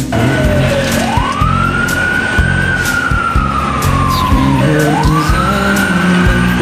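Fire engine siren wailing: it climbs slowly to a high pitch, sinks gradually, then climbs again near the end, over a steady low rumble.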